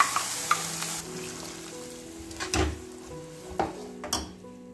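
Sizzling in a kadai as ground coconut masala paste goes into hot oil with fried black chickpeas. A steel ladle knocks and scrapes against the pan. The sizzle dies down about a second in, leaving stirring with a few sharp ladle knocks.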